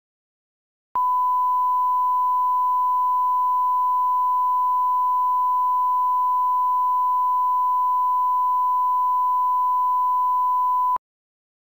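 Steady 1 kHz line-up test tone, the reference tone that runs with colour bars at the head of a video. It starts abruptly about a second in and cuts off abruptly about ten seconds later.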